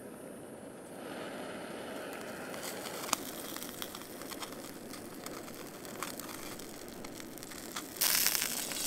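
Gas canister backpacking stove hissing steadily under a pan, with a click about three seconds in. Near the end the hiss jumps suddenly louder as the stove's valve is opened up.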